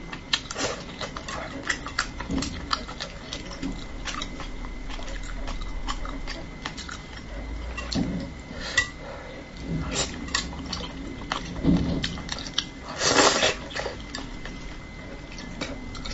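Close-miked eating: chewing and mouth noises mixed with the small clicks of chopsticks picking at fish bones against the dish, with a louder, longer mouth noise about thirteen seconds in.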